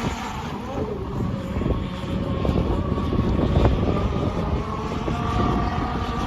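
Petrol engine of a radio-controlled model boat running at speed, its whine fading in the middle and coming back stronger near the end as the boat moves off and returns.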